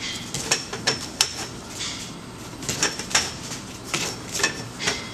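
Galvanized steel tubes clinking and tapping against the metal channel of a stall grill as they are fitted in by hand: a string of light, irregular metallic clicks.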